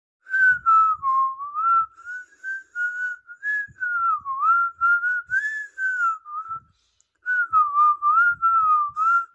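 A person whistling a wandering tune, the pitch gliding smoothly up and down between notes, with a short pause about seven seconds in.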